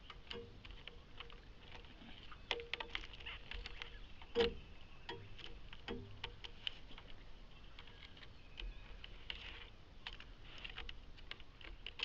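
Claws of a climbing animal scratching and clicking on the bark of a dead tree, as irregular sharp scrapes and taps with one louder knock about four and a half seconds in, over a faint high-pitched hiss.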